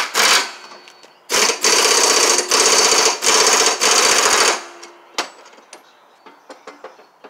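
Impact wrench hammering on the nut of a Husqvarna zero-turn mower's deck spindle pulley: a short burst at the start, then about three seconds of rapid hammering in several bursts as the nut is run down tight. Small clicks follow as the wrench stops.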